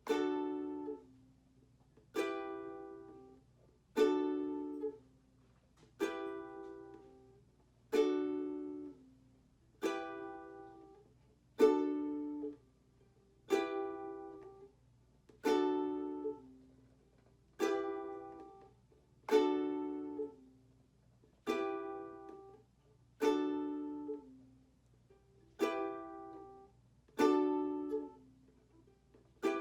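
Ukulele strummed one chord at a time, about one strum every two seconds, each ringing out and fading before the next: slow practice of the change between D and E minor chords.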